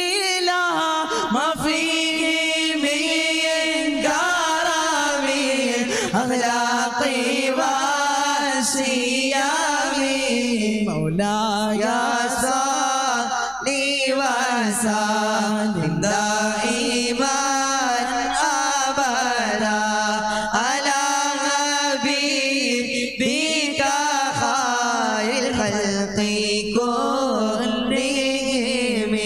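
Male voices chanting an Islamic devotional song together into microphones, a continuous melodic line with long held, wavering notes.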